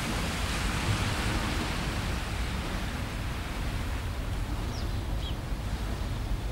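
Small waves washing onto a beach in a steady hiss, with wind rumbling on the microphone.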